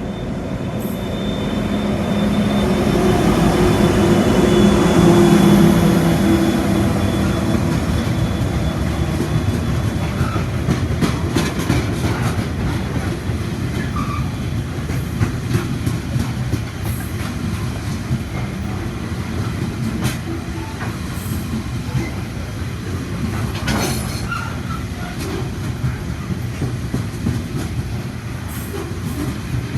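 LDP class diesel locomotive passing close by, its engine note loudest a few seconds in. After it comes the steady noise of freight wagons rolling past, with wheel clicks over the rail joints.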